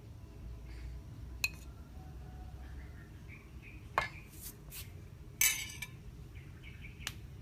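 Kitchen utensils knocking against dishes: three sharp clinks spread out, and a short scrape about five and a half seconds in.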